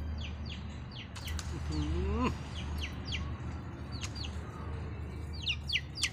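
Small birds chirping: short, quick, falling chirps repeated in loose clusters, over a steady low hum. About two seconds in, a single short rising call stands out.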